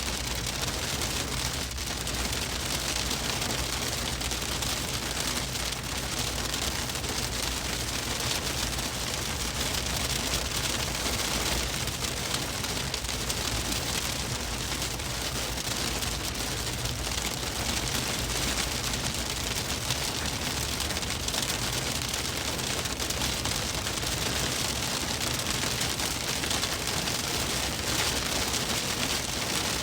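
Hail pelting a moving car's roof and windshield: a dense, steady clatter of small impacts, with the vehicle's low road rumble underneath.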